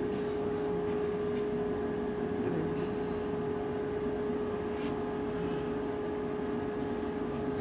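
Strong storm wind blowing: a steady rushing noise with a steady hum mixed in.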